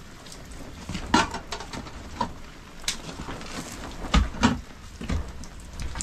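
Steady rain patter with scattered knocks and clicks of things being handled; the loudest knocks come about a second in and again just past four seconds.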